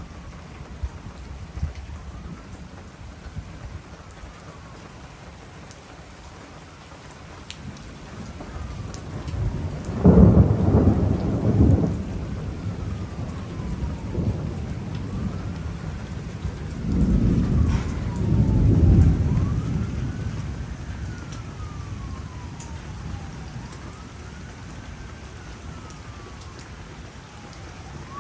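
Thunderstorm: steady rain falling, with two loud rolls of thunder, one about ten seconds in and another about seventeen seconds in, each rumbling for a couple of seconds. A faint siren wails up and down in pitch, again and again.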